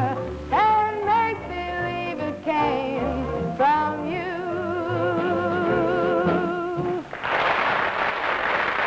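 Closing bars of a sung number with band accompaniment, ending on a long held final note, then applause breaking out about seven seconds in.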